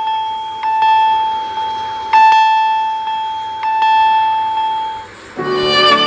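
Samsung Galaxy A55 ringtone: a single bell-like chime note struck three times, about a second and a half apart, each strike ringing out and fading. It stops about five seconds in, and the next ringtone, a fuller piece of music, starts just before the end.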